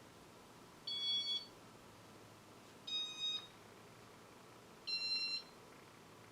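Three short electronic beeps, each about half a second long and about two seconds apart, each at a different pitch.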